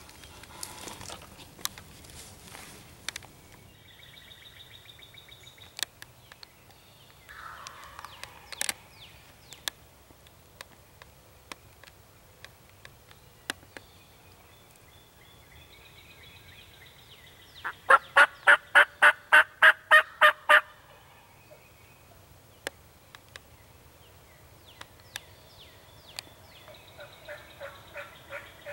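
A loud run of about a dozen evenly spaced wild turkey yelps, about four a second, some 18 seconds in, with softer turkey calls and light clicks before and after it.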